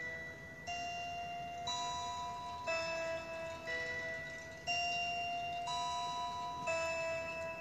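Instrumental background music: sustained, steady notes that change to a new chord about once a second.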